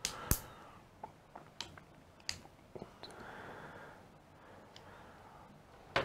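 RJ45 crimping tool pressing a connector onto an ethernet cable: one sharp click about a third of a second in, then a few faint scattered clicks and a soft rustle as the crimped plug is handled.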